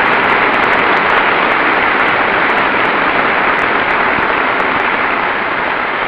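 A large audience of members of Congress applauding steadily, easing off slightly toward the end.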